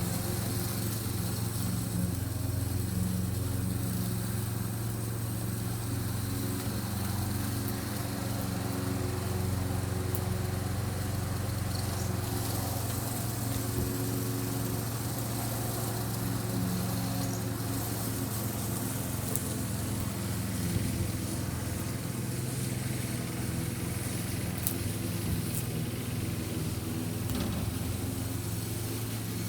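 A steady low hum, like a small motor or appliance running, with a few faint clicks.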